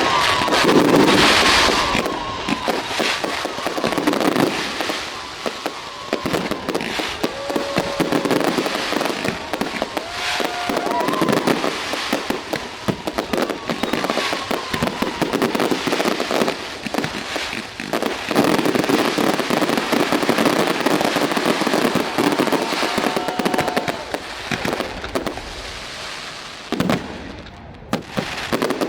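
Aerial fireworks display: dense crackling and rapid bangs of bursting shells, with a few short whistles and several louder booms. The crackle thins near the end after a last loud bang.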